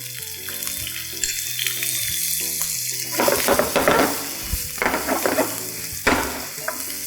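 Chopped shallots frying in hot coconut oil in a pan, a steady sizzle with a few stirring strokes from about the middle on, under soft background music.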